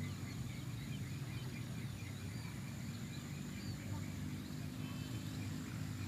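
Open-air rice-field ambience: a steady low rumble with faint, quick chirps of small birds, in a rapid run during the first half and scattered after.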